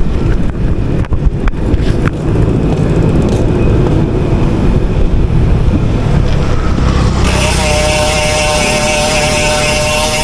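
Yamaha Sniper single-cylinder motorcycle engine running on a sound check with its newly fitted Speed One power spring. About seven seconds in, a steady, higher-pitched whine comes in over the engine's low rumble.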